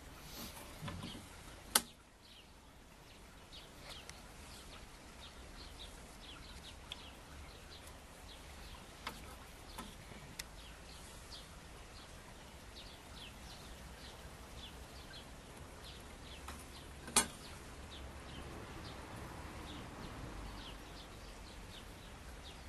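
Quiet bench work: a steel rule being laid on and moved across a pine board while it is marked out in pencil, with many faint short high ticks and scratches. There are two sharp clicks, one about two seconds in and a louder one near the end, over a low steady hum.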